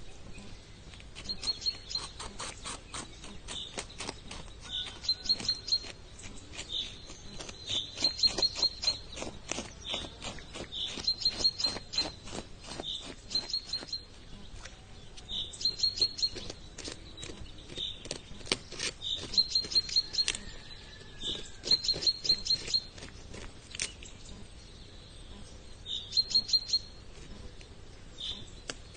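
A small songbird calling again and again in short trills of three to five high chirps, every second or two. Under it are runs of sharp clicks that come and go in clusters.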